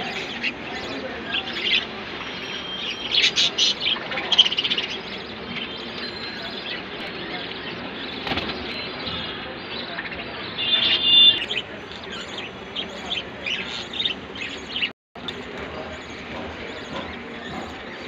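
Budgerigars chirping and warbling in short, scattered calls, with louder runs of chatter about three to four seconds in and again around eleven seconds. The sound cuts out completely for a moment about fifteen seconds in.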